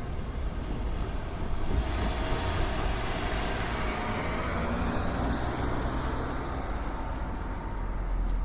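A vehicle passing at a railway level crossing: a rush of noise that swells about two seconds in and fades after about six seconds, over a steady low rumble.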